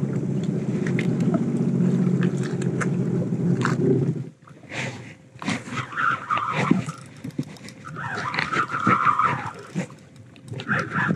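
A jet ski engine idles steadily, then cuts off about four seconds in. Scattered clicks and two short rasping runs follow from the spinning reel as a hooked fish is played on the bent rod.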